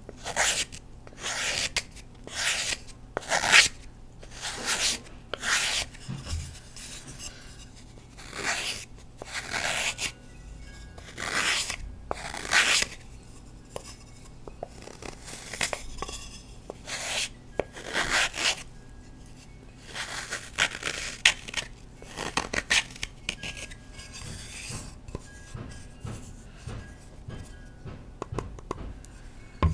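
Knife blade shaving a block of Colift gym chalk into thin flakes: repeated dry scraping strokes, about one a second, with a few short pauses.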